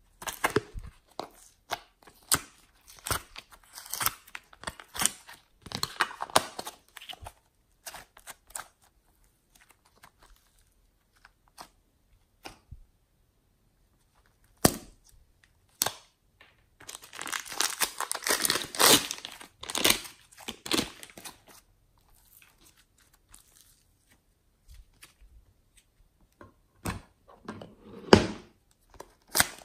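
Soft modelling clay being squeezed and pulled apart by hand, with a plastic piping bag crinkling: scattered sticky clicks and crackles, and a long dense stretch of crinkling and tearing a little past the middle.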